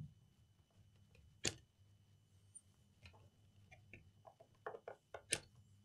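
Faint, scattered clicks and light knocks of a laptop's plastic chassis and hinged lid being handled, with a sharper click about a second and a half in and a run of small clicks near the end.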